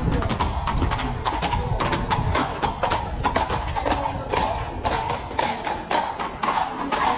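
Horse hooves clip-clopping, a fast, uneven run of sharp knocks.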